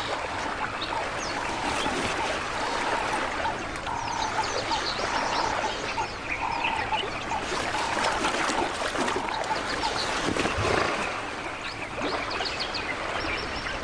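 River ambience: water sloshing and splashing around hippos, with many birds chirping throughout.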